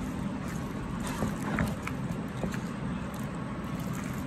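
A steady low rumble underneath, with a few faint soft ticks and squelches as a silicone spatula stirs mayonnaise-and-cream-dressed macaroni salad in a glass bowl.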